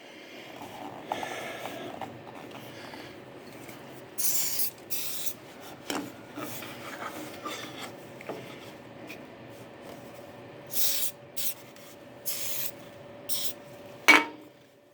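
Hands rubbing and handling wooden box pieces, with several short hissing bursts in between and a sharp click near the end.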